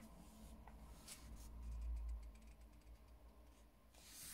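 Faint handling of a paper colouring book: a hand brushing across the page, with light ticks and rustles. Near the end comes a louder rustle of paper as the page is taken up to turn.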